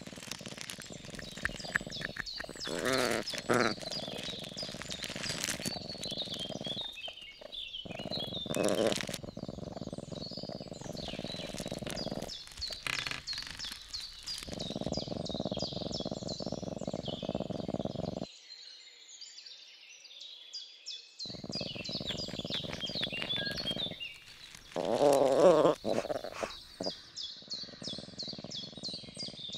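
Woodland soundscape of birds chirping and trilling over a low steady rumble that cuts in and out abruptly. Two louder, wavering animal-like calls stand out, about three seconds in and again near the end.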